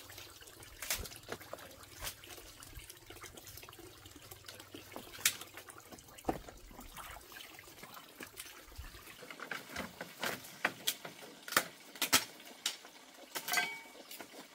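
Water trickling and splashing, with scattered sharp clicks and knocks that come more often in the second half.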